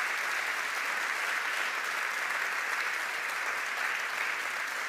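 Steady, sustained applause from a large audience giving a standing ovation.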